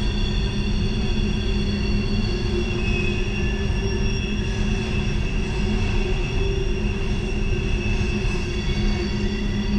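Norfolk Southern freight train rounding a sharp curve, its steel wheels squealing against the rails in several steady high-pitched tones over the constant low rumble of the rolling cars.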